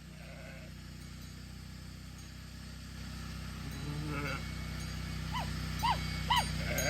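Sheep bleating faintly: a lower call about four seconds in, then three short bleats in quick succession near the end, over a steady low background rumble.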